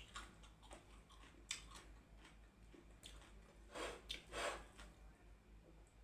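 Close-miked eating sounds: chewing with soft wet mouth clicks and smacks, and two louder chews a little past the middle.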